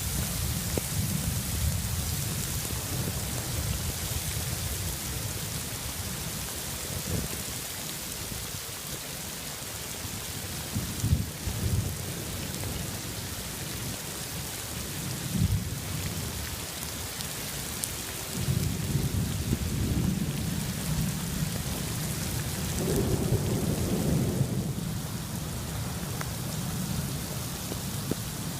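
Heavy thunderstorm rain falling steadily, with rolling thunder rumbling. The thunder is strongest at the start and again through the last third, with a few short louder rumbles in between.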